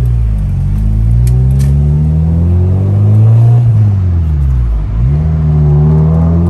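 Car engine accelerating hard: the revs climb for about three and a half seconds, fall away steeply, then climb again. Two sharp clicks about a second in.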